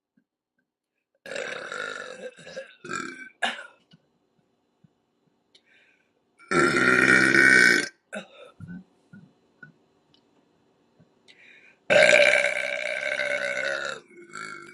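A woman burping deliberately, three belches in turn: a broken, stuttering one about a second in, a loud one of about a second and a half near the middle, and a long loud one of about two seconds near the end.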